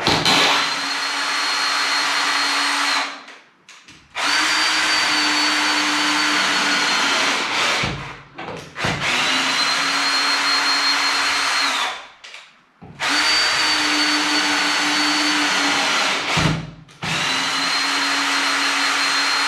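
Cordless drill driving a screw up into a plaster ceiling to probe for a joist. The motor runs at a steady speed in five spells of about three seconds each, with short pauses and a knock or two between them.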